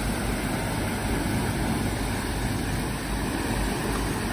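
Steady rush of turbulent water pouring out below a dam's gates, an even noise heavy in the low end.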